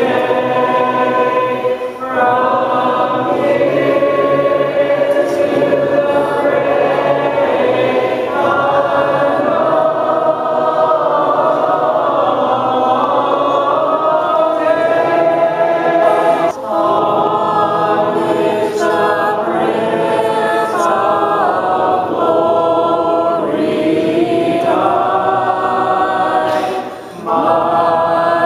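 Church congregation singing a hymn a cappella, many voices together with a woman's voice singing along close to the microphone. The singing goes in long held lines with short breaks between phrases.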